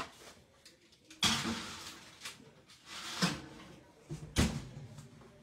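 An oven door swings open, a metal tray carrying a covered dish is slid onto the oven rack with a knock, and the door shuts with a deep thud near the end.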